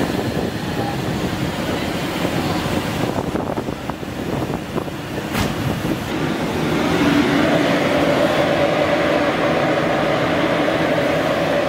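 Continuous peanut roasting machine running, a steady mechanical drone. There is a single sharp click about five seconds in, and from about seven seconds in the running grows louder, with a steady hum.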